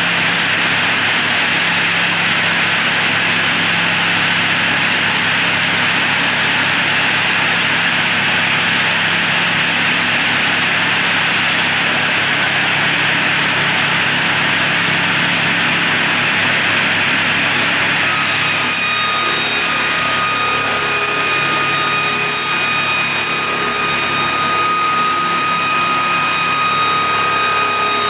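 SBGP-700 multi-blade circular saw machine running with a steady mechanical noise. About two-thirds of the way through, a steady high whine with several tones sets in over it.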